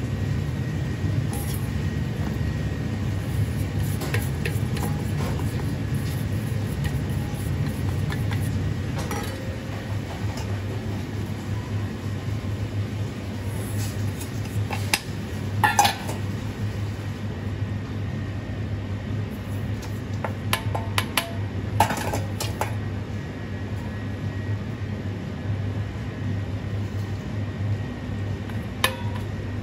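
Small stainless steel bowls clinking against the rim of a large stainless steel mixing bowl as seasonings are tipped in: a handful of sharp metal clinks, the loudest about halfway through, over a steady low hum.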